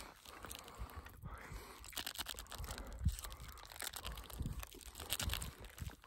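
Plastic snack wrapper being torn open and crinkled in the hands, an irregular crackling.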